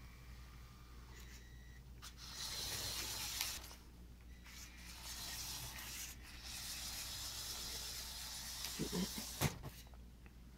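LEGO Technic 8081 B-model car's Power Functions motors and gear train whirring with a high, hissy sound in two runs as the car drives across the floor, the first starting about two seconds in. Near the end come a few clicks and one sharp knock.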